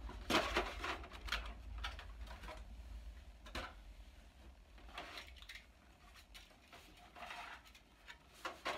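Plastic toy packaging being handled: a plastic-wrapped tray lifted and set down and a round plastic display base picked up. The handling gives irregular clicks and light knocks, busier in the first couple of seconds.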